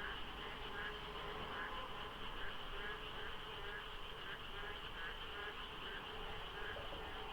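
A dense chorus of frogs calling over one another during the monsoon rains. Short calls repeat about every half second to second over a steady din of many voices.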